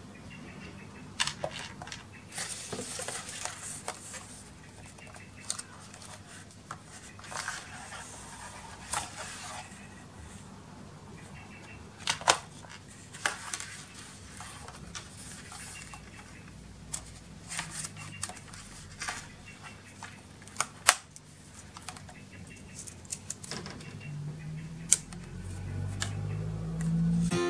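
Hands rustling and unfolding paper and cardboard packaging, with scattered light clicks and taps, while a smartwatch and its rubber sport band are taken out of their paper holders.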